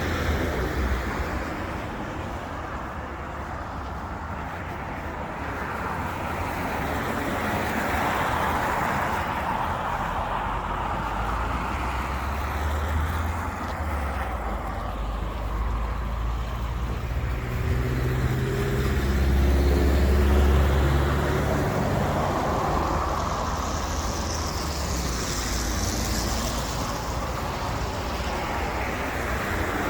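Steady city road traffic, cars passing. About two-thirds of the way in, a vehicle's engine hum grows loudest and then fades as it goes by.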